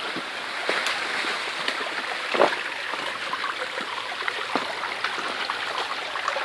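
Small forest stream running and trickling over rocks, a steady rushing hiss. Scattered light clicks through it, with a louder knock about two and a half seconds in.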